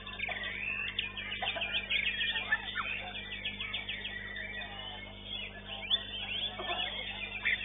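White-rumped shama (murai batu) singing a fast, near-continuous run of high chirps and whistled notes, over a low steady electrical hum.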